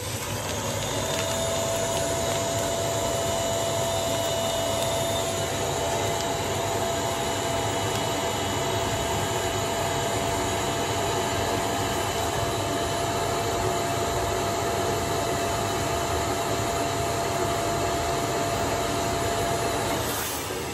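Vacuum cleaner switched on and running steadily with a constant whine, sucking the air out of a vacuum storage bag of clothes through its hose; it is switched off near the end and the motor winds down with a falling pitch.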